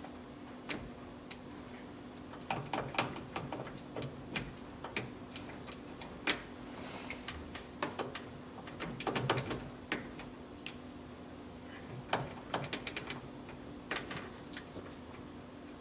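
Irregular light metallic clicks and taps as a 1969 Chevrolet C10's ignition lock cylinder is worked and wiggled out of the steering column with a worn key and small screwdriver. A steady low hum runs underneath.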